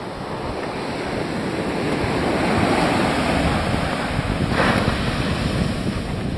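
Surf breaking and washing up a sandy beach, with wind buffeting the microphone. The noise swells toward the middle, with a brief louder surge about four and a half seconds in.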